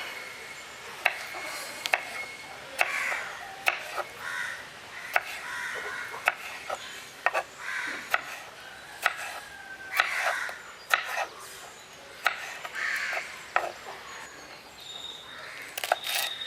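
Knife chopping on a wooden cutting board: sharp knocks roughly once a second, somewhat irregular.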